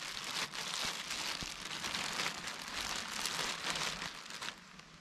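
Thin black plastic garbage bags crinkling and rustling as they are handled and one is stuffed into the armhole of the other, dying down near the end.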